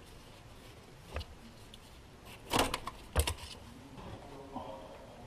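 A light click, then two short bursts of metallic clatter and rattling as a makeshift wrench and hand work at an oil filter under the hood.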